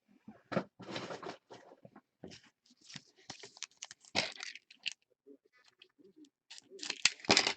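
Trading card packaging being handled and torn open: irregular crinkling, crackling and tearing of cardboard and pack wrappers, with a louder flurry near the end.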